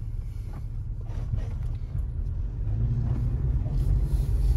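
Toyota Tacoma pickup driving, heard from inside the cab as a low rumble of engine and road noise that grows louder as the truck gets moving.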